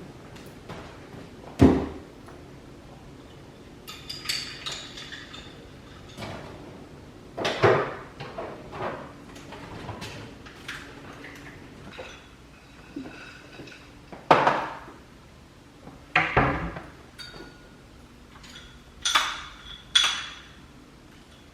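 Kitchen clatter: dishes and utensils being handled, with a few sharp knocks and some ringing clinks.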